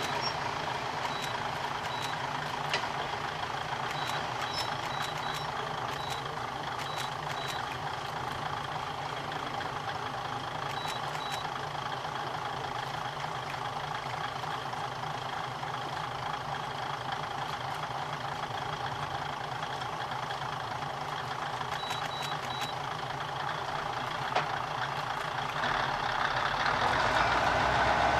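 Kominato Railway diesel railcar creeping slowly through the station, its engine running steadily and getting louder near the end. Short high beeps come in small clusters now and then.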